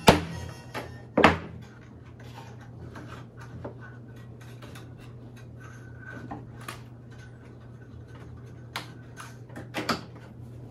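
Clicks and knocks of hand tools and frame wire against a wooden Layens beehive frame and its wiring jig as the wire is tightened and fastened. The loudest knocks come in the first second or so, with lighter scattered ticks after them and a few more knocks near the end.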